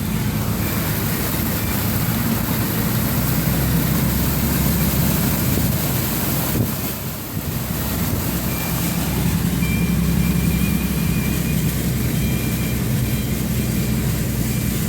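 Car driving slowly through deep floodwater, heard from inside the car: a steady engine hum under a continuous rush of water and wind noise, with a brief dip about halfway through.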